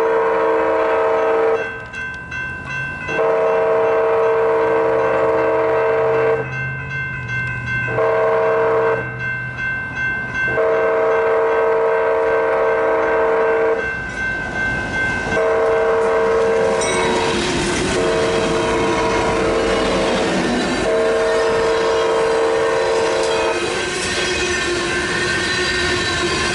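BNSF freight locomotive horn blowing the grade-crossing signal, long, long, short, long, then three more blasts as the locomotives reach the crossing. Underneath, the rumble and clickety-clack of the train's grain hopper cars rises and carries on alone near the end.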